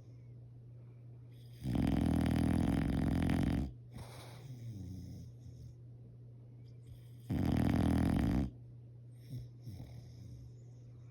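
Bulldog snoring loudly: a long snore of about two seconds a couple of seconds in, then a shorter one about a second long past the middle, with softer breathing sounds in between.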